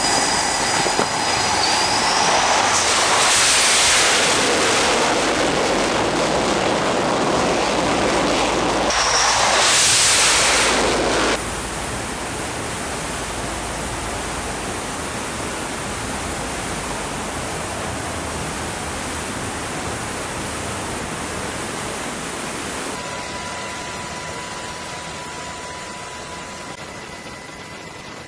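Fighter jet engine noise as a jet flies low past a carrier flight deck: a loud rushing roar with a rising whine, swelling twice and cutting off abruptly about eleven seconds in. A steadier, quieter rushing noise follows, with a faint steady hum entering near the end as it fades.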